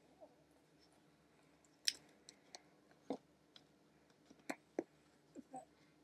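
Soft, irregular taps and slaps from hands striking each other and the chest while signing in sign language, about nine in all, the sharpest about two seconds in.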